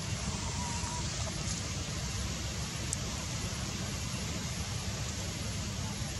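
Steady outdoor background noise with a heavy low rumble, and a faint brief high note about half a second in.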